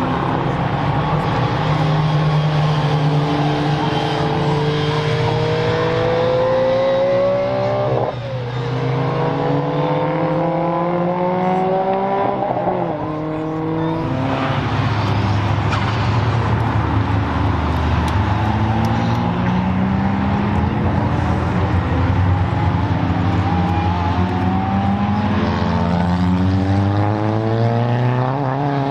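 Performance car engines accelerating hard through the gears with loud exhausts. The pitch climbs steadily and drops sharply at each upshift, about 8 and 13 seconds in, then climbs again in further runs.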